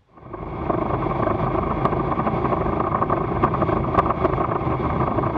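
Steady rush of wind and road noise on a car-mounted action camera as the car drives, fading in at the start, with a few faint clicks.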